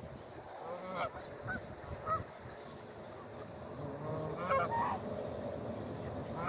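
Canada geese honking: a few short calls around one and two seconds in, then a louder cluster of calls about four and a half seconds in.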